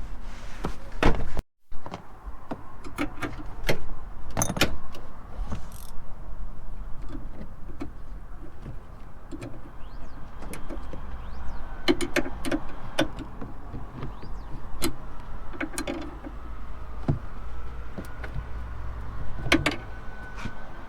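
Plastic interior trim being pulled off a car's cabin: a scatter of sharp clicks, knocks and rattles as clips let go and panels are handled, with a brief break in the sound about a second and a half in.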